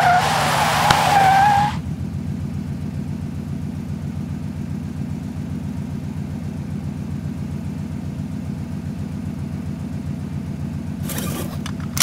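Car tyres squealing in a short skid for under two seconds, then a steady low engine hum, with a brief burst of noise near the end.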